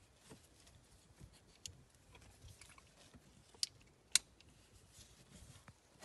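Back-lock folding knife with a Damascus blade being folded shut: faint handling ticks, then two sharp metallic clicks about half a second apart, a little past three and a half seconds in, as the lock and blade snap into place.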